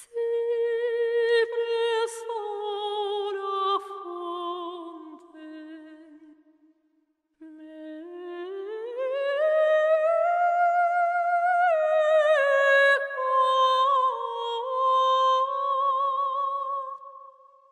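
Background music: a single high wordless voice singing long held notes with vibrato. The notes slide downward, break off for a moment about seven seconds in, then glide up and hold before settling lower.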